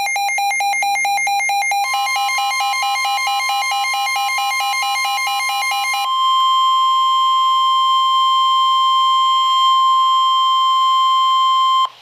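NOAA Weather Radio alert tones before a severe thunderstorm warning: rapid electronic beeping that switches to a faster two-pitch warble about two seconds in, then the steady 1050 Hz weather radio warning alarm tone from about six seconds in, which cuts off shortly before the end.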